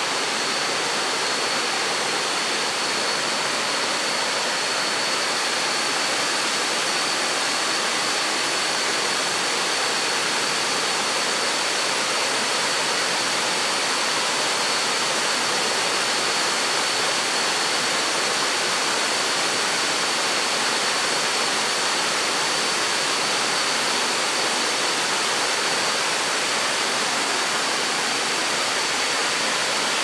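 Water pouring over low tiered limestone cascades into shallow pools of a waterfall: a steady, even rushing. A thin steady high-pitched whine sits above it.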